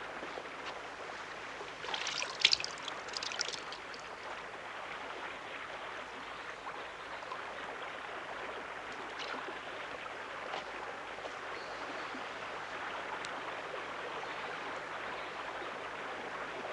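Steady flow of river water over a stony bed, with a short run of sharp clicks and clatters about two to three and a half seconds in.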